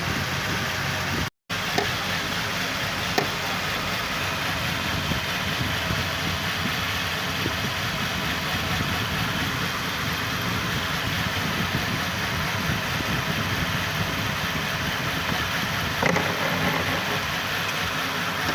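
A car engine runs steadily at idle. The sound cuts out completely for a moment about a second and a half in, then carries on with a few faint clicks.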